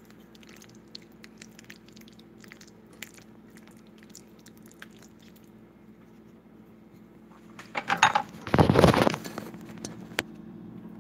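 A spatula stirring thick, sticky macaroni and cheese in a cast-iron skillet: soft wet squishes and light clicks against the pan. About eight seconds in comes a loud burst of rubbing and knocking as the camera is handled close up.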